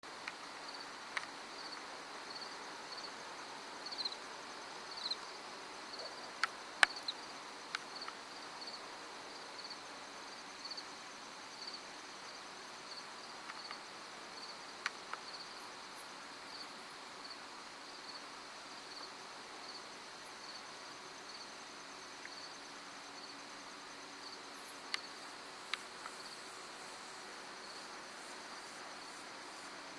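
Crickets chirping, a steady, evenly spaced series of high chirps, with a few sharp clicks scattered through, the loudest about seven seconds in.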